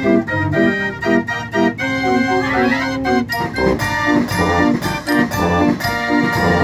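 Fairground organ playing a lively tune, with chords, a steady drum beat and a quick rising run of notes about two seconds in.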